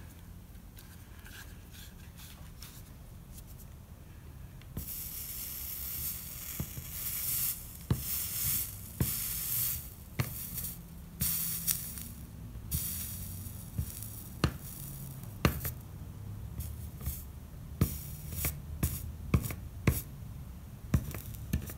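Electric soldering iron melting solder along a seam of a stained glass panel. The flux sizzles in irregular bursts of hiss from about five seconds in, with scattered sharp crackles and pops throughout.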